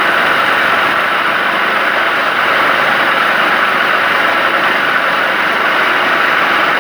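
Woodturning lathe running steadily while turning a wooden bed leg, a constant even noise throughout.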